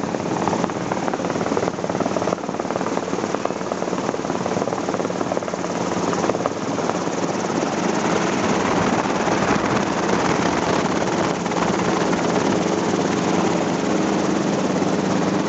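Helicopter engine and rotor running steadily, heard from inside the cabin as it descends and sets down on a field. It is a loud, even drone with a steady low hum.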